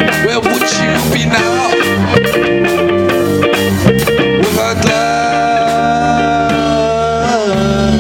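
Rock music in an instrumental passage: guitar over bass and drums, with a long held high note about five seconds in that wavers and then bends down.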